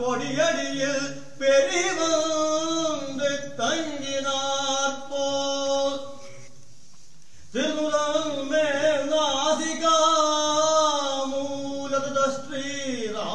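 A solo voice chanting devotional verses of a Srivaishnava kattiyam recitation in long, melodic held notes that slide between pitches. The voice breaks off for about a second midway, then resumes.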